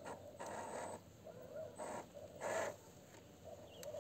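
Scale RC crawler truck's small electric motor and gears whining faintly in short spurts of throttle, tyres scrabbling on loose dirt, as it fails to climb a steep bank and tips over.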